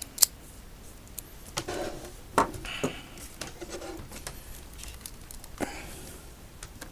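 Sharp clicks and short scraping rustles of parts being handled while taking apart an Inmotion V5F electric unicycle, with the loudest click just after the start.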